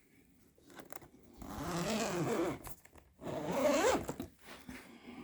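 Zipper on the guitar's case being pulled open in two long strokes.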